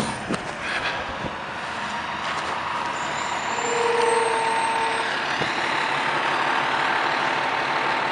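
E-One Cyclone fire pumper's diesel engine running as the truck rolls slowly across the lot, with a brief steady tone near the middle.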